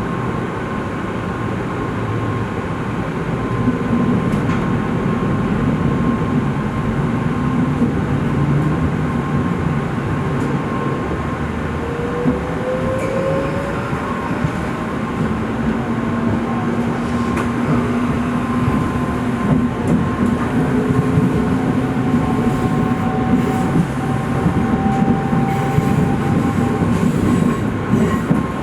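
A Shinkansen train moving slowly over a level crossing: a steady rumble of wheels and running gear, with electric motor whine that rises in pitch about twelve seconds in and then holds, over a steady high tone.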